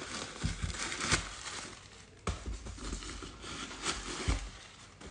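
Handling of a new pair of leather boots: rustling and crinkling, with a few light knocks scattered through.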